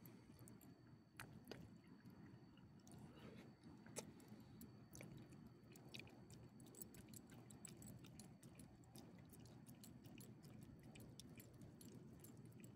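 Small dog chewing and licking pieces of rotisserie chicken from a person's palm: faint quick wet clicks and smacks, coming thicker in the second half.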